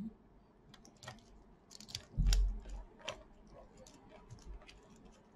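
Precision screwdriver turning a small screw out of an HP laptop's plastic bottom case: scattered light clicks and ticks. A dull low thump about two seconds in is the loudest sound.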